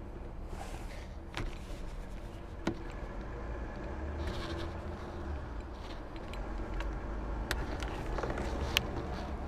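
Scattered sharp clicks and light scraping of car interior parts being worked loose by hand, over a steady low hum.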